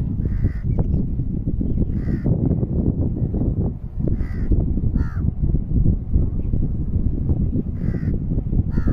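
Bird calls, six short ones at irregular intervals, over a steady low rumble.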